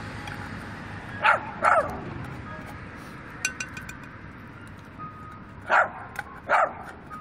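A dog barking: two quick barks about a second in, then two more near the end.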